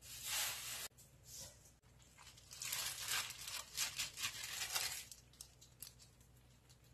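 Plastic-gloved hand handling whole napa cabbage kimchi in a pan: wet crinkling and rustling of the glove and cabbage leaves, densest for a few seconds in the middle, after a brief rustle at the start.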